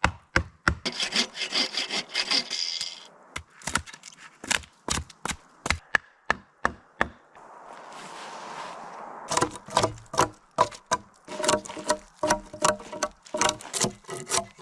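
A hand tool cutting wood in quick, repeated rasping strokes, like sawing or shaving a log, with a short pause of softer scraping in the middle.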